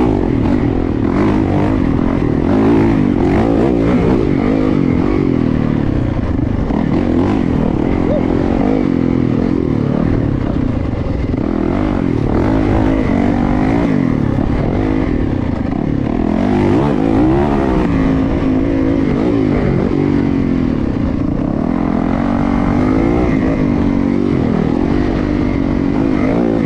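Yamaha YZ450FX dirt bike's 450cc single-cylinder four-stroke engine being ridden off-road, its pitch rising and falling repeatedly with the throttle.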